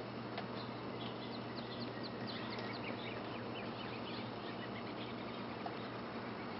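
Small birds twittering in a quick run of short, high chirps during the first half, over a steady background hiss and a low hum.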